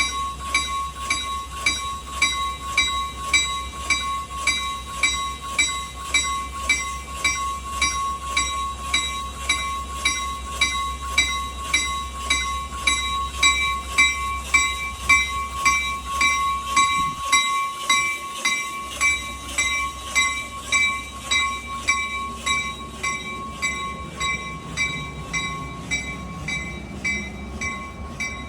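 Locomotive bell of a Metra train ringing in an even, steady rhythm of a little under two strokes a second, as is sounded while the train shoves. A steady low hum from the train runs underneath.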